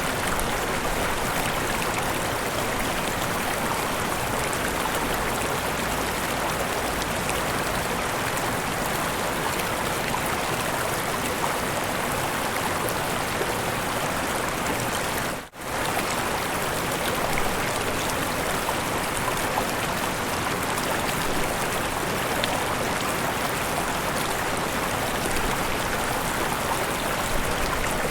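Mountain river and small waterfalls rushing steadily, an even, dense water noise. About halfway through the sound drops out for a moment and comes back.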